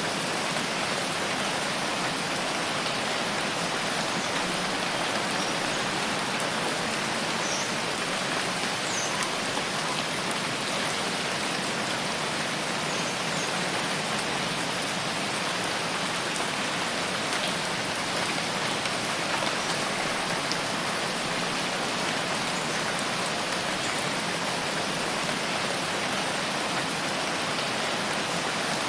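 Steady rain, a constant even hiss of falling drops with faint scattered drop ticks.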